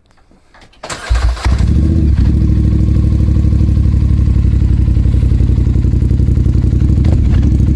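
Polaris Scrambler XP 1000 S ATV's twin-cylinder engine cold-started through an HMF full aftermarket exhaust. A short crank about a second in, then it catches with a loud burst and settles into a steady, fast-pulsing idle.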